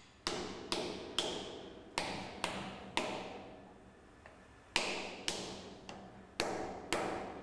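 Hammer tapping on a piece of wood held against the flange of a rubber sealing plug, driving the plug into a steel conduit sleeve around a pipe until the flange sits flush with the conduit. There are about ten sharp taps in small groups, with a pause near the middle, and each one rings briefly.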